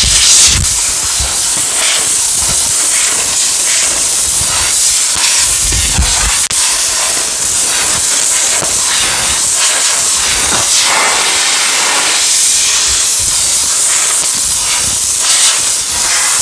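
Compressed-air blow gun hissing steadily, blowing air onto a hot, freshly welded sheet-metal seam to cool it, with a few light knocks of handling.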